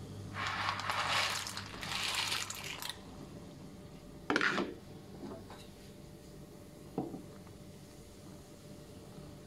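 Dry spiral pasta tipped from a plate into a pot of boiling water, a rush of splashing for about two and a half seconds. Then comes a sharp knock about four seconds in, and lighter taps of a wooden spoon against the steel pot as the pasta is stirred.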